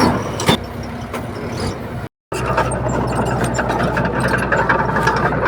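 Heavy earthmoving machinery at work: a diesel engine's steady drone with metallic rattling and clanking. The sound drops out for an instant about two seconds in, then resumes louder with quick, dense clatter.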